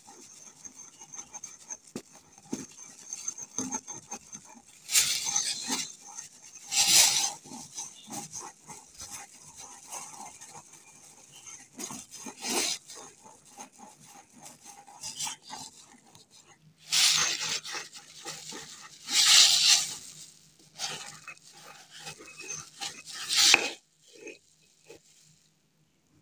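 Pestle grinding and scraping white ammonium chloride (noshadar) powder around a mortar, in uneven bursts of rubbing strokes with quieter stretches between. It stops shortly before the end.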